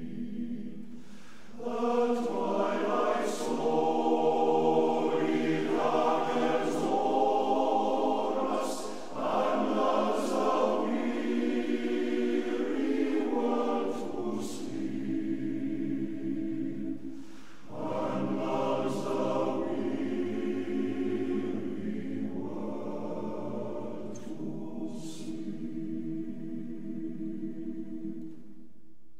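A choir singing in long, held phrases with short breaks between them.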